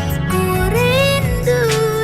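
Music from a slow pop ballad: a sliding melody line over a steady bass and chords.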